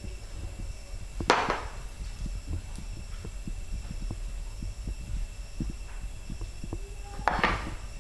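Steady low room hum with scattered faint ticks, and two louder clunks about six seconds apart, one about a second in and one near the end: bowls being set down on a kitchen counter.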